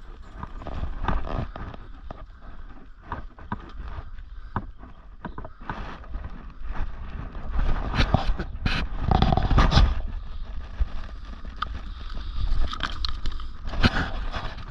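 Boots stepping and scraping on rock and loose gravel, with irregular knocks and scrapes of handling against stone over a low rumble; the clatter is loudest about eight to ten seconds in.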